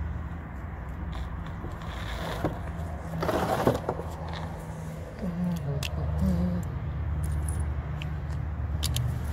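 A car's plastic underbody cover being handled and pushed back into place, with a scraping rustle about three seconds in. A few light metallic clicks of loose screws and a screwdriver on concrete follow near the end, over a steady low hum.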